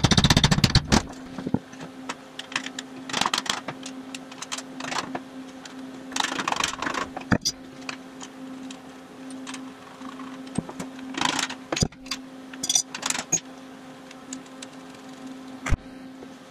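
A quick run of hammer blows on a wheel hub clamped in a steel bench vise, the loudest sound, in the first second. Then scattered metallic clanks and clicks of tools and brake parts being handled, over a steady low hum.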